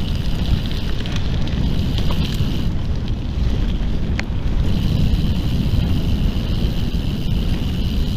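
Wind buffeting the microphone while riding a gravel bike, a steady low rushing with a single sharp tick a little over four seconds in.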